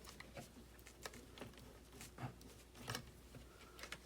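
Faint, irregular clicks and taps of small plastic RC-car kit parts being handled during assembly.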